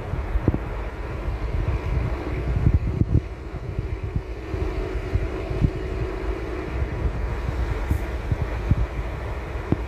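Road noise inside a moving car's cabin: a steady low rumble from tyres and engine, with short bumps from the road surface now and then.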